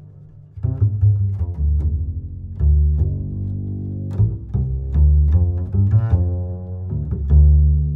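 Instrumental background music with deep bass notes. The notes come in after a brief lull about half a second in.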